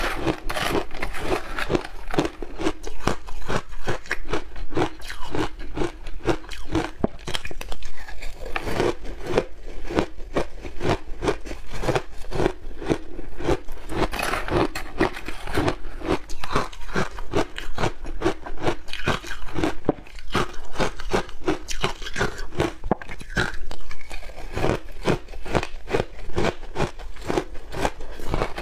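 Frozen shaved ice being chewed and crunched close to the microphone: a rapid, continuous run of crisp crunches.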